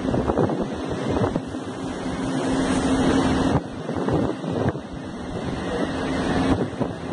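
Gusty storm wind buffeting the microphone in loud, uneven surges. A faint steady hum runs underneath and cuts off sharply about three and a half seconds in.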